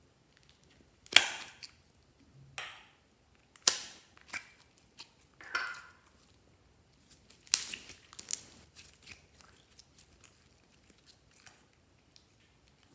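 Slime being squished and pressed: a string of sharp, wet pops and crackles as it sticks and releases, the loudest about a second in, near four seconds and past seven seconds.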